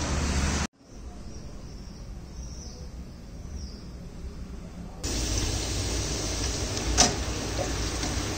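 Potato fries deep-frying in a wire basket of hot oil, a steady sizzle that starts suddenly about five seconds in, with one sharp metal clink about two seconds later. Before that come a few seconds of quiet room sound, and at the very start a moment of street traffic noise.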